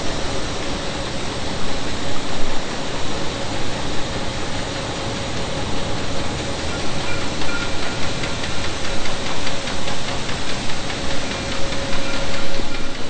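Steady machinery noise with a constant mid-pitched hum running through it.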